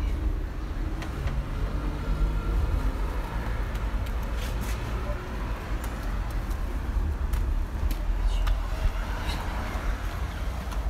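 Wash mitt rubbing over a foam-covered car body, with a scatter of small clicks, over a steady low rumble.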